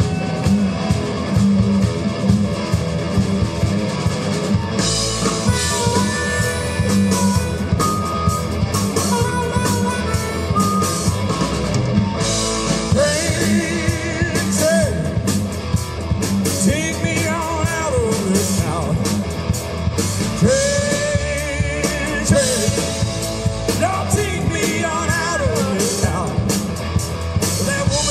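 Live rock band playing a blues-rock song: electric guitars, bass guitar and drum kit, with a lead voice and wailing lead lines over the band from about halfway through.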